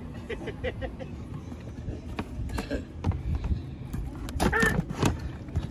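Indistinct voices, strongest a little past the middle, over light knocks and rustles from handling a plastic bait bucket and its lid.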